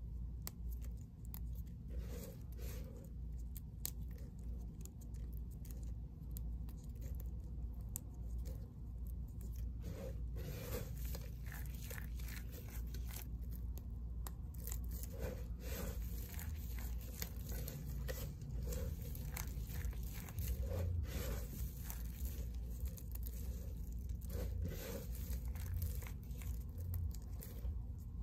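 Small pieces of bar soap being crushed and crumbled between the fingers: a continuous run of small crisp crunches and snaps, busier from about ten seconds in.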